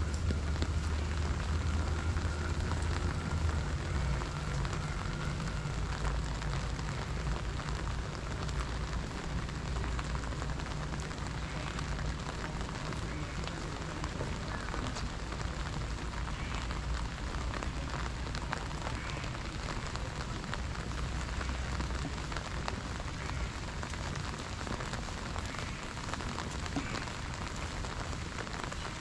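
Steady rain falling on wet stone paving, an even hiss, with a low rumble beneath it for the first several seconds.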